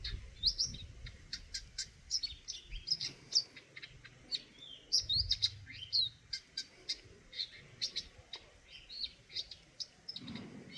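Eurasian nuthatch chirping: a busy run of short, high calls, several a second, some sliding in pitch.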